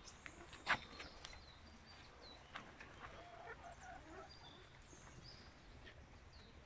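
Chickens clucking faintly, with a few short high chirps and one sharp click under a second in.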